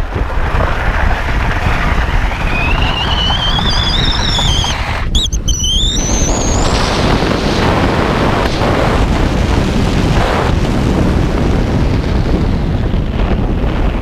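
Wind rushing loudly over a ski jumper's helmet-mounted microphone during the inrun and the flight. Over the first few seconds a whistle rises in pitch. About five seconds in there is a short break, at takeoff, then a second rising whistle. After that the rush of air runs steady.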